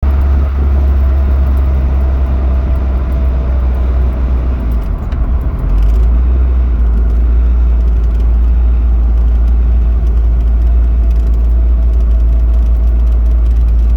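Boosted Honda D16 inline-four car running, a steady deep rumble with a brief wavering about five seconds in.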